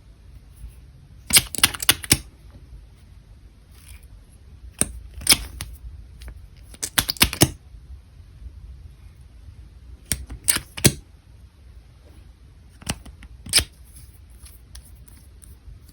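Sharp clicks and taps in short clusters a few seconds apart, from makeup containers and tools being handled.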